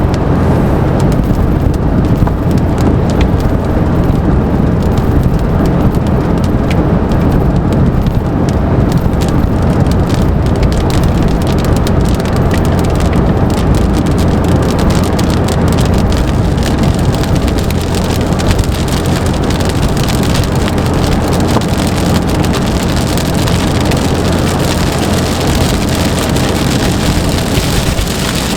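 Heavy rain falling steadily, a dense patter of drops over a low rumble, the hiss growing fuller in the second half.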